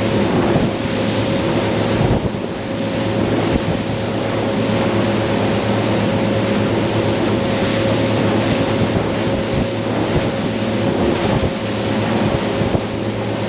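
Motorboat running at cruising speed: a steady engine drone under the rush of water from the wake and wind buffeting the microphone, with a couple of brief thumps.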